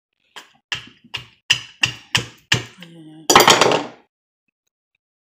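About seven sharp taps, roughly three a second, as a metal-tipped tool is struck into a whole coconut to open it, followed about three seconds in by a louder, longer noisy burst.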